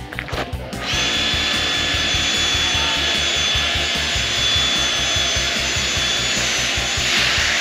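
A pressure washer cuts in about a second in and runs steadily: a hiss of spray with a steady high whine from its motor and pump, as it rinses dirt and soap out of the car's carpets.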